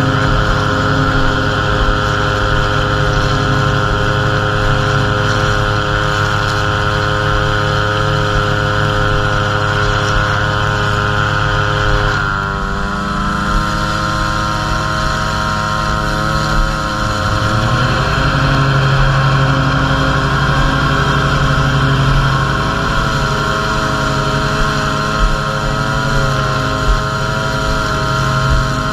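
Gas string trimmer engine running at high speed as its spinning line edges grass, a steady engine note. About twelve seconds in the engine eases off and its pitch drops, then climbs back up to speed over several seconds.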